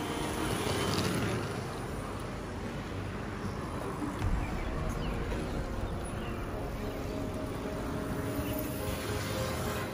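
Steady street noise of a large group of electric bikes, scooters and unicycles riding past, with a brief low thump about four seconds in.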